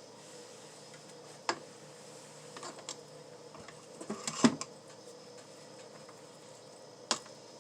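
A few light clicks and knocks from kitchen utensils being handled during food preparation, the loudest about halfway through, over a faint steady hum.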